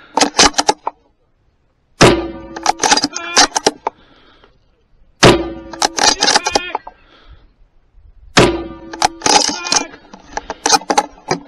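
Three rifle shots from a bolt-action precision rifle, about three seconds apart, each followed by a brief ringing. Sharp metallic clicks of the bolt being cycled and the rifle handled come between the shots.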